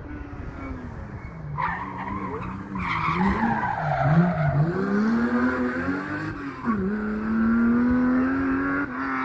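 Porsche 911 SC's air-cooled flat-six engine working through a rally stage, its revs rising and falling as it is driven hard, with tyres squealing through a corner in the first half. Later it pulls hard with the revs climbing steadily to the loudest point, then drops off abruptly near the end as the driver lifts or shifts.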